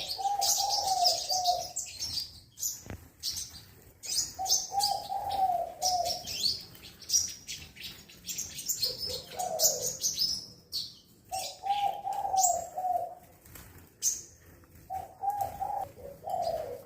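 Black-throated sunbird giving sharp, high chirps and song notes on and off. A dove coos in the background, repeating a short phrase about five times.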